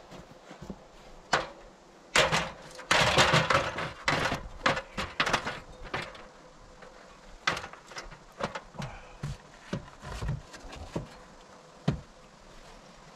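Irregular knocks and clatter as a person climbs an aluminium extension ladder carrying a wooden board: boots on the metal rungs and the board bumping the ladder and wall. The clatter is densest a couple of seconds in, then thins to scattered single knocks, with one sharp knock near the end.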